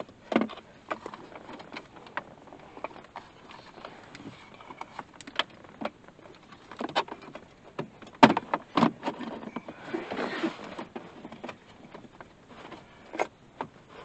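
Irregular clicks, taps and knocks of hands and a tool working on a car's plastic dashboard trim while the radio's mounting screws are undone, with the loudest knock about eight seconds in and a short rustle around ten seconds.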